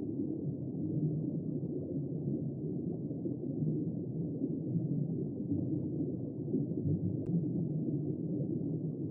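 Steady, muffled low rumble of moving water, as heard through or under water, with one faint click about seven seconds in.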